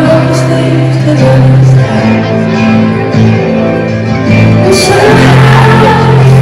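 Live concert music recorded from the audience: a woman singing a slow song to acoustic guitar over the arena's PA, with held notes.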